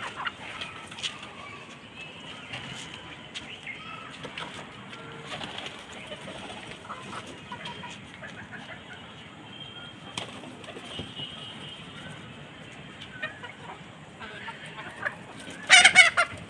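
Chickens and pigeons foraging together: scattered soft clucks and coos, pecking taps and occasional wing flaps, with a brief loud squawk near the end.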